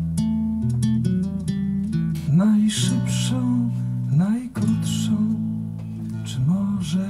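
Nylon-string acoustic guitar played live, plucked bass notes and chords ringing on, with several notes sliding upward along the strings.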